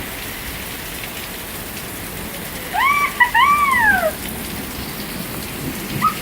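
Steady rain pouring down in a rainstorm. About three seconds in, two high-pitched calls rise and fall in quick succession, louder than the rain.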